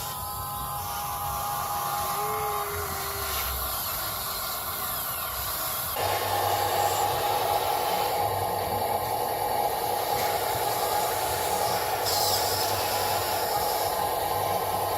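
Radio-controlled construction model running its electric motor with a steady whine. The whine steps up clearly louder about six seconds in and holds there.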